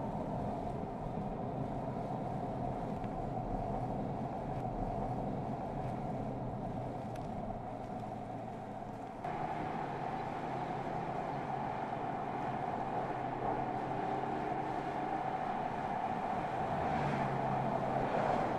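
2015 Mercedes-Benz S 65 AMG Coupe driving at road speed: its twin-turbo V12 running steadily under road noise. The sound changes suddenly and gets louder about nine seconds in.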